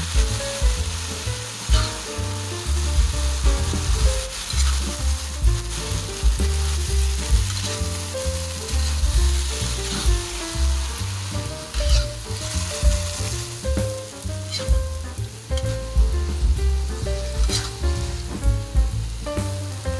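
Boiled banana blossom sizzling as it is stir-fried in a wok, turned with a spatula, with a few sharp scrapes of the spatula against the pan.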